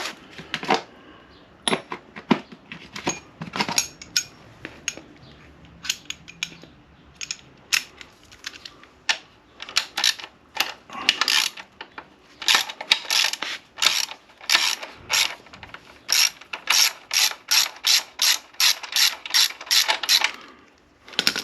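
Socket ratchet wrench clicking as a bolt is worked. The clicks come in scattered strokes at first, then in a steadier run of about three clicks a second through the second half.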